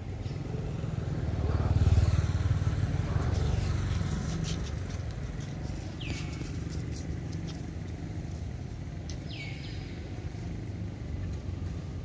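Engine of a passing motor vehicle: a low hum that swells to its loudest about two seconds in, then eases back into a steady background drone.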